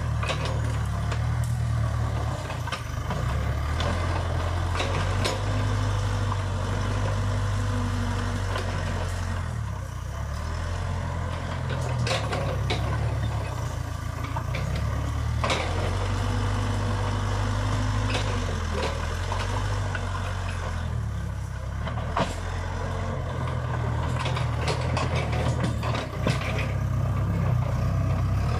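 Case 580 Super K backhoe loader's diesel engine running under changing load, its note stepping up and down, with scattered sharp cracks and rattles as the front bucket pushes through brush and scrub.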